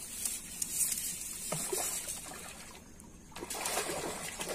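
Hooked fish thrashing at the water's surface as it is pulled in on a line, water splashing in three bursts.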